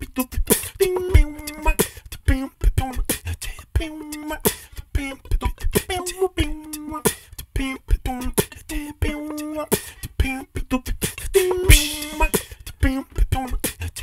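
A cappella vocal music: beatboxed percussion, sharp clicks and low thumps in a steady rhythm, under short repeated sung notes.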